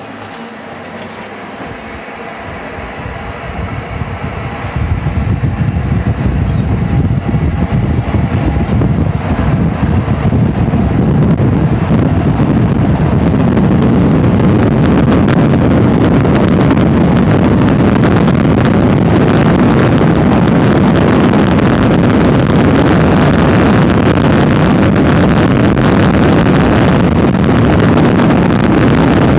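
Hurricane simulator blowing wind through its tube. The rushing noise builds over about the first ten seconds and then holds steady at full strength, a gust speed of about 78 mph.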